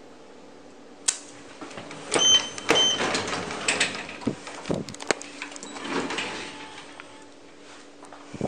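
Schindler 3300 traction elevator's chime: two short identical beeps, about half a second apart, some two seconds in. Around them a sharp click, a few knocks and handling clatter as the car doors stand open.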